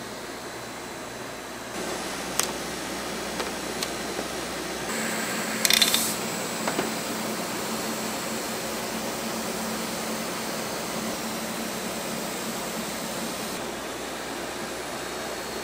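Cotton candy machine running with a steady whir and hum. A few scattered clicks come first, then a quick burst of metallic clinks about six seconds in, as sugar is poured from a metal scoop into the spinning head.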